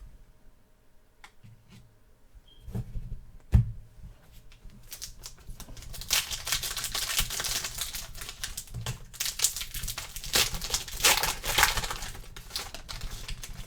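A trading card pack's wrapper being torn open and crinkled, a dense crackling that runs for most of the second half. A few clicks and one sharp thump come in the first four seconds.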